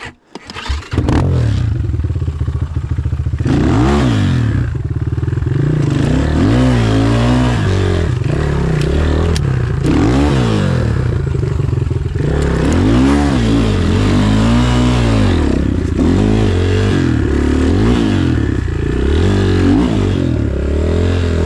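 Enduro motorcycle engine running, starting about a second in, and revving up and falling back again and again every second or two as the throttle is worked while riding over rough ground.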